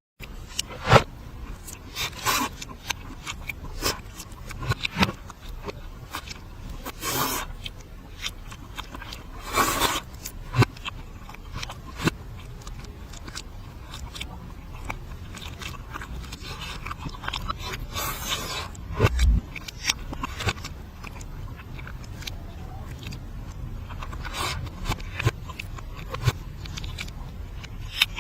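Close-miked mukbang eating sounds played in reverse: chewing, crunching and scraping, made of many short clicks with a few longer noisy swells.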